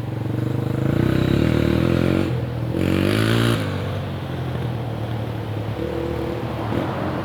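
Dirt bike engine revving up, climbing in pitch to a peak about three and a half seconds in, then dropping back abruptly to a lower, steadier run.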